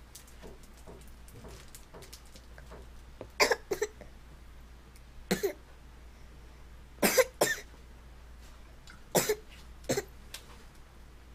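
A toddler coughing in short, sharp bursts, seven of them spread over several seconds, some in quick pairs.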